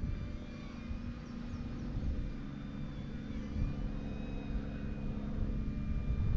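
Small electric RC plane's motor and propeller running in flight, a steady drone with a faint high whine, over a low rumble.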